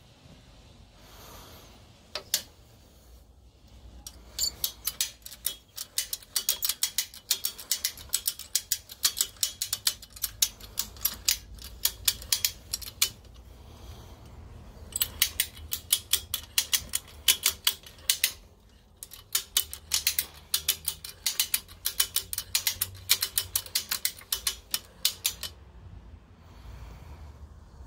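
Ratchet tie-down, welded to a light box-section frame, being worked by its handle: the pawl clicks rapidly as the webbing strap winds onto a slotted bolt. The clicking comes in three long runs with short pauses between them.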